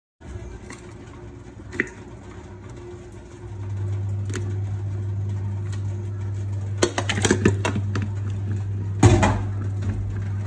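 Raw potato slices and fish pieces dropped into a steel cooking pot: a clatter of knocks about seven seconds in and a heavier thump near nine seconds. A steady low hum sounds underneath and grows louder a few seconds in.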